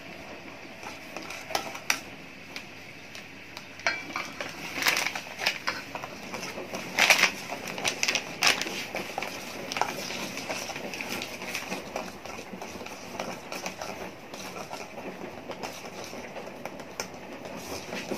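A spoon scraping and clinking against a stainless-steel mixing bowl as cake flour is stirred in, with the plastic flour bag rustling as it is poured; irregular clicks and scrapes, a few sharper knocks in the middle.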